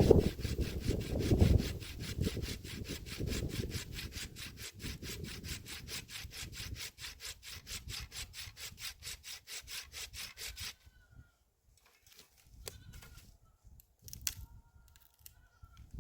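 A saw cutting wood with rapid, even back-and-forth strokes, about four a second, that stop about eleven seconds in. Faint goat bleats follow in the quiet near the end.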